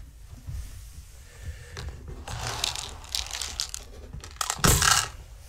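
Rustling and crinkling, with a few light clicks and a louder burst of rustling near the end.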